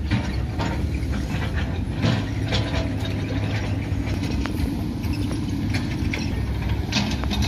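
Mitsubishi Colt Diesel dump truck's diesel engine idling with a steady low rumble, with scattered sharp clicks.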